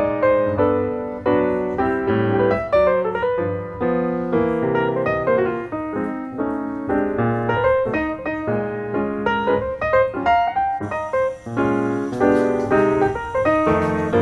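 Background solo piano music, a continuous run of notes. A faint high hiss joins it about eleven seconds in.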